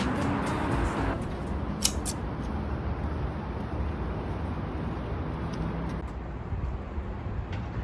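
Background music cuts off about a second in, leaving a steady low hum of street traffic, with a few light clicks around two seconds in.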